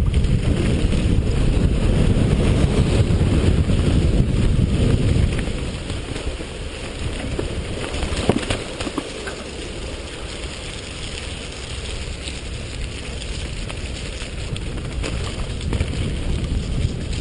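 Wind buffeting the microphone of a camera riding a downhill mountain bike, over the rumble of tyres on a dirt trail. The heavy wind rush lasts about the first five seconds, then drops to a lighter rumble, with a sharp knock about eight seconds in.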